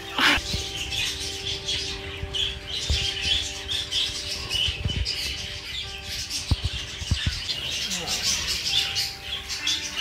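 Budgerigars chattering in a flock, with many quick chirps, over background music with held notes, with a few dull low thumps near the middle.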